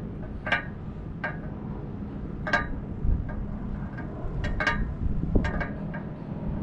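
Wind noise on the microphone over a steady low rumble and faint hum, with short sharp clicks and ticks scattered irregularly through it.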